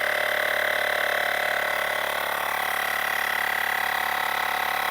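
Portable electric tyre-inflator air compressor, powered from the motorcycle's wiring, running with a steady, even hum while pumping a motorcycle tyre up from about 29 toward 32.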